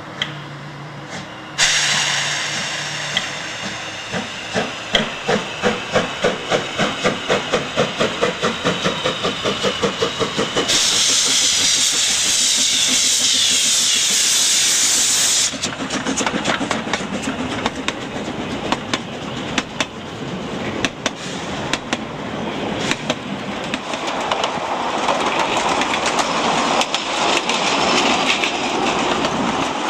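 Narrow-gauge steam locomotive pulling away: sharp exhaust beats that come quicker and quicker, then a loud steady hiss of steam from its open cylinder drain cocks for several seconds as it passes close. After that the carriages rumble and clatter by on the rails.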